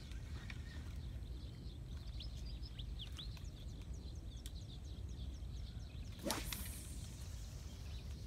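A fishing rod cast: a single sharp swish of the rod through the air about six seconds in. Under it runs a steady low rumble of wind on the microphone.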